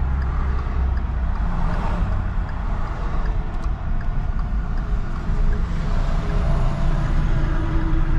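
Pickup truck driving at road speed: a steady low rumble of engine and tyres with even road noise above it.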